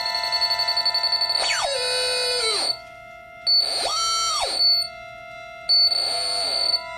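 Improvised experimental music: several ringing tones held steady, overlaid three times by clusters of tones sliding in pitch, falling, then rising and falling, each breaking off suddenly.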